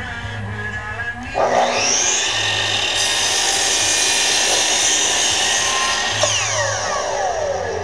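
Makita miter saw motor spinning up with a rising whine about a second and a half in, running while the blade cuts through a stack of 3 mm MDF, then winding down with a long falling whine near the end. Music plays underneath.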